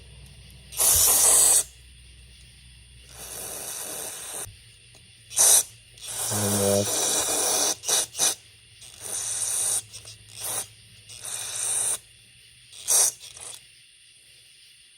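Aerosol carburetor cleaner sprayed onto and through a chainsaw carburetor in a series of short hissing bursts, about ten of them, some under half a second and the longest over a second.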